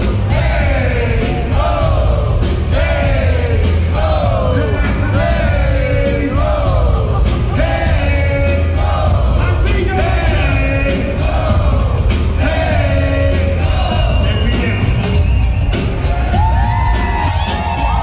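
Loud live music with a heavy bass beat and a repeated sliding vocal line, with a crowd singing, yelling and whooping along.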